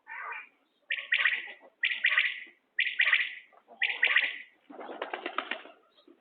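Common quail calling repeatedly, a short, high, rapidly pulsed call about once a second, followed by a longer, lower and rougher call near the end.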